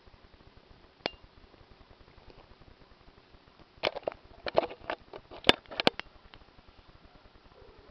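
Handling noise on a small camera: one sharp click about a second in, then a quick flurry of clicks and knocks lasting about two seconds, from the camera being jostled at close range while a kitten plays at the lens.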